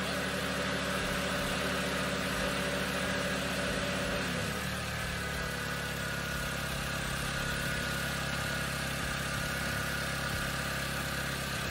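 2009 Honda Civic's four-cylinder engine idling steadily with the radiator open, run to purge air from the freshly refilled cooling system. About four seconds in the engine note steps down slightly and settles at a lower idle.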